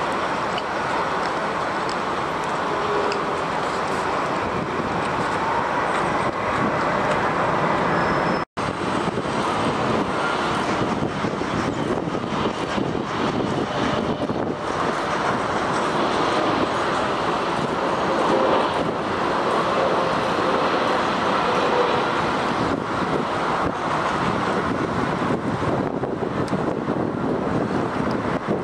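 Steady noise of jet airliner engines with wind on the microphone. First a Singapore Airlines wide-body twin-jet rolls out after landing; then, after a brief cut in the sound about eight seconds in, a Swiss Boeing 777-300ER comes in on final approach and touches down. Faint whines slide slowly in pitch under the noise.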